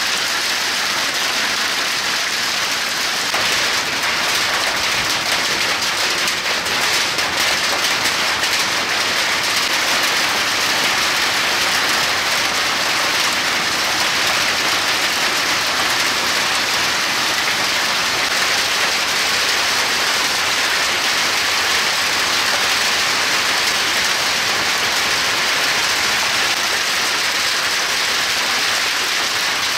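Large hail pelting pavement and vehicles: a dense, steady clatter of countless small hits.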